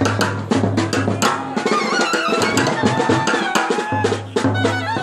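Kerala brass band playing: trumpets and clarinets carry a melody over fast, dense beats on bass drum, snare drums and cymbal.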